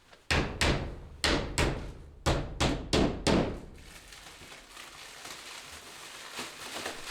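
A hammer driving nails into wood: about eight sharp blows in quick groups over the first three and a half seconds, each ringing briefly.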